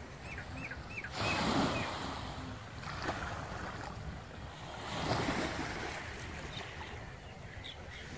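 Small waves washing up onto a sandy beach and against rocks, swelling and ebbing every few seconds, with wind buffeting the microphone. A few short high chirps sound in the first second and again near the end.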